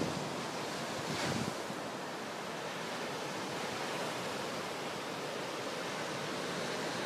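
Steady wash of ocean surf breaking on a sandy beach, mixed with wind blowing across the microphone; a short louder rush of wind about a second in.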